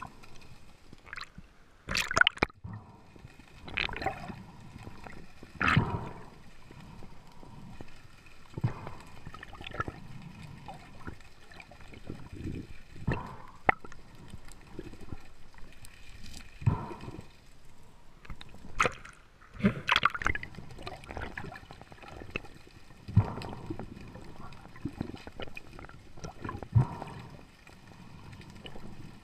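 Water sloshing and gurgling, with irregular splashes every second or two.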